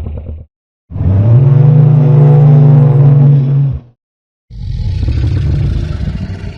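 Designed vocal sound effects for Bonitasaura, a sauropod dinosaur: the tail of a short call, then a loud, steady, low bellow of about three seconds, then a rougher, noisier rumbling call from about four and a half seconds in.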